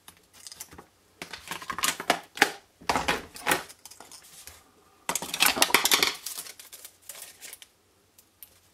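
Paper craft pieces and tools handled on a desk: four bursts of rustling and clatter, the loudest about five seconds in, as paper flowers are lifted off a foam mat and the mat and its stylus tools are moved aside.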